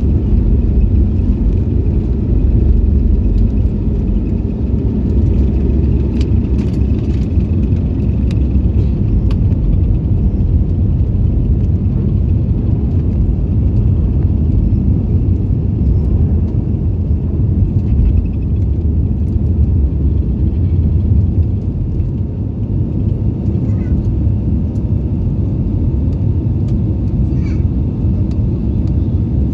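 Steady low rumble of engine and airflow noise heard inside an airliner cabin in flight, with a faint high whine in the first several seconds.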